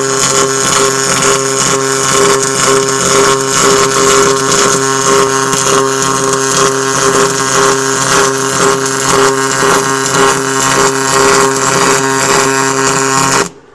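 MIG welder running a continuous bead on an aluminum hull seam: a steady buzzing hiss over a strong hum, cutting off abruptly near the end as the arc stops.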